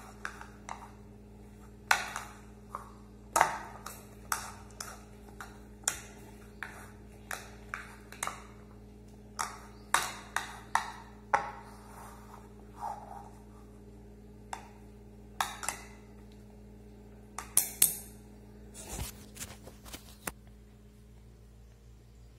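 A spoon clinking against the side of a bowl while fruit salad is stirred: irregular sharp taps about once or twice a second, with a quick run of louder clinks a few seconds before the end.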